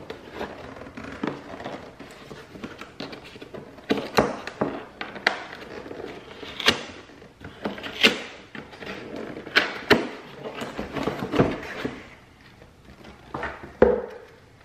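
Cardboard packaging being handled: a printed cardboard sleeve slid off a box on a stone countertop and the box flaps opened, with irregular scraping, rustling and sharp taps of cardboard. A single thump comes near the end as the box lies open.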